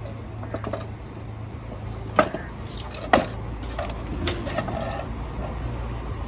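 Steady low rumble of road traffic, with a few light clatters and two sharp clinks about a second apart, roughly two and three seconds in.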